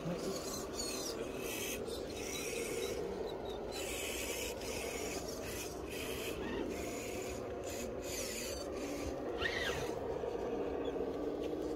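Radio-controlled rock crawler driving over rough ground: its electric motor and gears run in short throttle bursts, heard as a rasping, grinding hiss that comes and goes every second or so, over a steady low whine.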